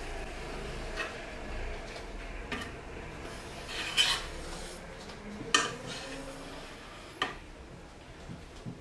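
Knife blade drawn along the edge of a metal baking tray, cutting through thin rolled baklava dough: about five short scraping strokes, roughly a second and a half apart.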